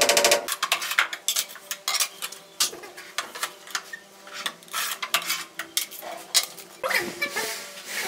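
Sharp clicks and clinks of ceramic tile work: a mallet tapping a wall tile into its bed, then a manual tile cutter working a tile, with a rougher burst about seven seconds in.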